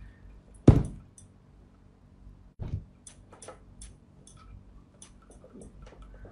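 Clear slime being worked in a glass dish: a knock a little under a second in and another near three seconds, then a run of short sharp clicks and pops, about two or three a second.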